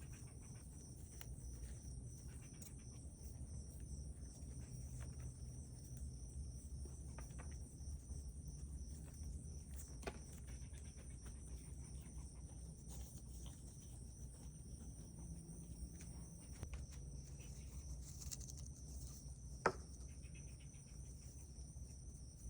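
Faint, steady high chirring of insects, with soft sounds of hands working soil and plant strands and a single sharp click near the end.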